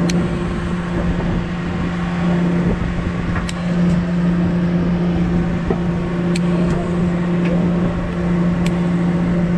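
Party fishing boat's engine droning steadily with a constant low hum, over water washing against the hull, with a few sharp clicks.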